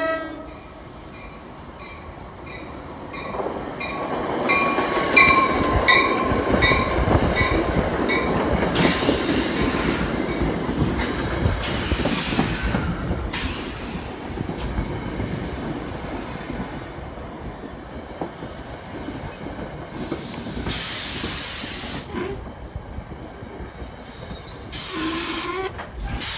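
NJ Transit push-pull train led by a Comet cab car, with an ALP-46 electric locomotive trailing, pulling into the station. A bell rings about twice a second through the first several seconds while the wheels rumble past, easing as the train slows. Several bursts of hiss follow, the last near the end.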